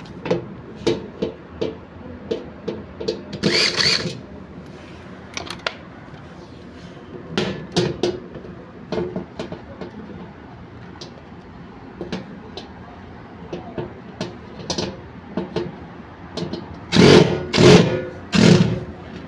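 Repair work on a washing machine: a string of sharp metal knocks and clicks from tools and parts being handled, with louder clattering bursts about three and a half seconds in and again near the end.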